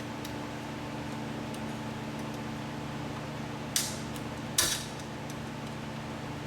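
Screwdriver working at a metal window-trim clip: two sharp metallic clicks a little under a second apart, over a steady hum.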